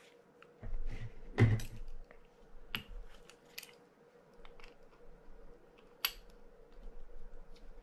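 Small metal clicks and clinks of an adjustable wrench being fitted onto the clicker nut of a brass fishing-reel side plate, with a louder knock about a second and a half in.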